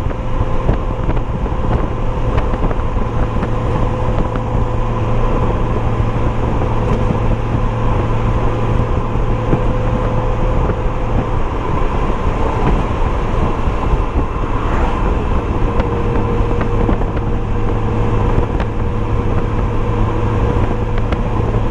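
Honda Gold Wing GL1800 trike's flat-six engine running steadily at highway speed, heard on board under wind and road noise, with a constant low hum and a couple of steady higher tones.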